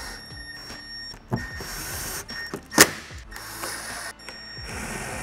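Cordless drill/driver running in short stop-start bursts, driving screws into a plastic underbody panel, with a sharp knock about three seconds in.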